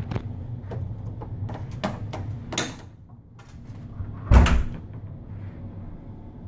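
A steady low hum with scattered small clicks and knocks, and one loud, deep thump about four seconds in.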